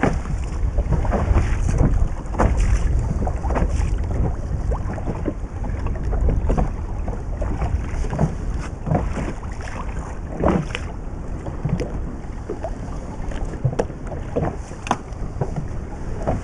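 Wind buffeting the microphone, with water slapping irregularly against the hull of a small inflatable boat in short splashes and knocks.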